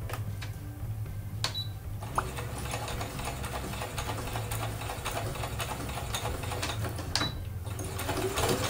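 Compact electric sewing machine stitching through cotton fabric: a steady motor hum under fast, even needle ticks, with a short stop near the end.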